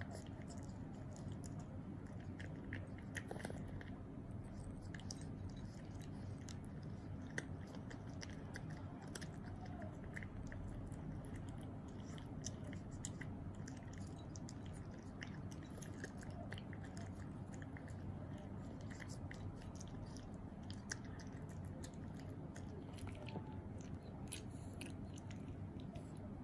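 A cat chewing dry cat treats: faint, irregular crunches and small clicks. A steady low hum runs underneath.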